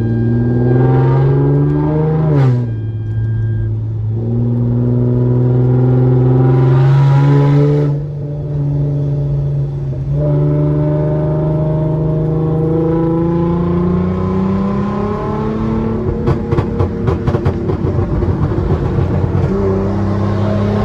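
Tuned 2016 Hyundai Genesis Coupe 3.8 V6 with test pipes accelerating hard, engine pitch climbing and dropping at two quick upshifts. Near the end, after lifting off, the exhaust crackles and pops in a rapid burst from the tune's pops-and-bangs map.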